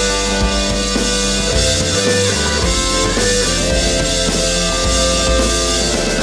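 Rock band recording playing steadily: drum kit, bass and guitar.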